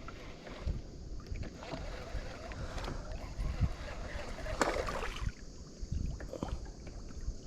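Small knocks and handling sounds on a small fishing boat over a low wind rumble on the microphone, with one sharper clatter about four and a half seconds in.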